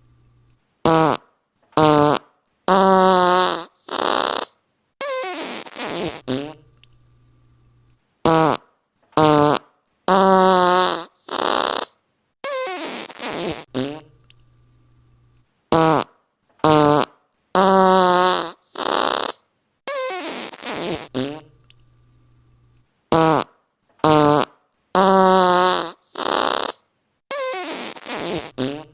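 Fart sounds played in a repeating set of five: two short blasts, two longer farts with a wobbling pitch, then a quieter, drawn-out one that trails off. The set plays four times with short pauses in between.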